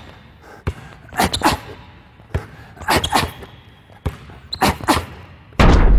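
Basketball dribbled hard in a repeating pattern: a single bounce, then a quick pair of bounces as the ball is crossed from hand to hand in double crossovers, about every second and a half. Near the end a loud low boom starts suddenly and carries on.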